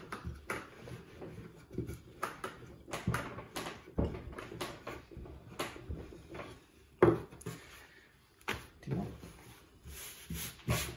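Wooden rolling pin rolling out a sheet of fresh pasta dough on a floured wooden table, with irregular knocks and thuds as the pin is pushed, lifted and set back down.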